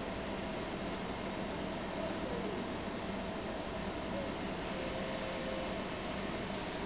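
Digital multimeter's continuity beeper: a short high beep about two seconds in, a brief blip, then a steady beep from about four seconds in. The steady tone signals continuity through the homemade omni antenna's conductor all the way to its top.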